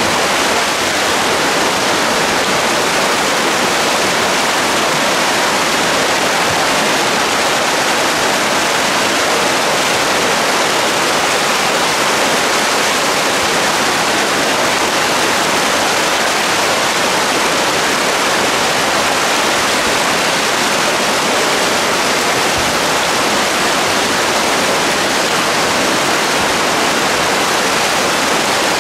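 Water rushing steadily over a wooden weir step, a loud, even whitewater sound with no let-up.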